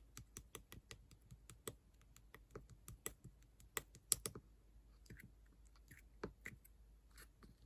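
Slime being worked by hand, giving an irregular run of small sticky clicks and pops, dense for the first four seconds or so, then sparser.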